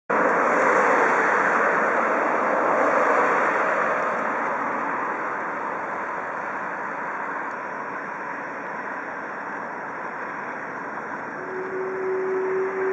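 Rail-yard and traffic noise: a steady rushing sound, loudest at the start and slowly fading. Near the end a single steady tone sets in and holds.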